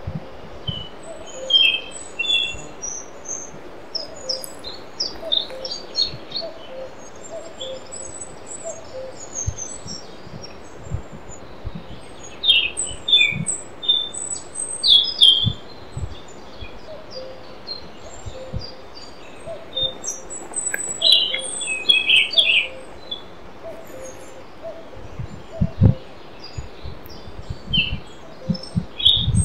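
Forest birdsong: several small birds chirping and trilling in short, high phrases throughout, with a fainter lower call repeating in the background and a few soft low thumps.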